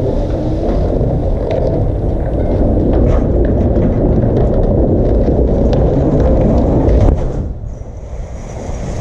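Deep, loud rumble of a demolished 85-metre industrial chimney toppling and crashing down, with a few sharp cracks of breaking masonry on top. The rumble drops off suddenly about seven seconds in.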